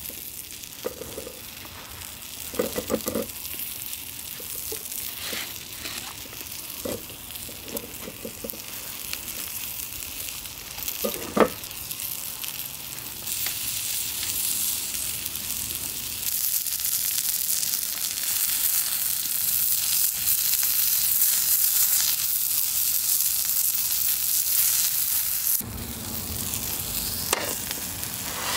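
Food frying in a pan, a steady sizzle that grows louder about 13 seconds in and drops off sharply near the end. A few light knocks come in the first dozen seconds.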